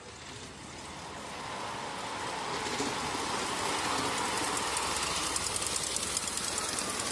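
A miniature ride-on live steam train approaching and passing close by, its running clatter on the rails growing louder over the first few seconds and then holding steady as it goes past.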